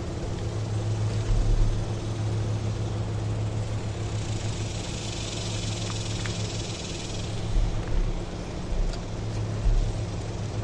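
A steady low engine hum, with a few deep thumps and a brief rise in hiss partway through.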